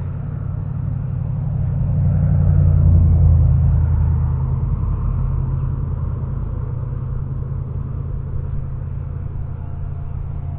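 Low motor rumble that swells to its loudest about three seconds in, then eases back to a steady hum.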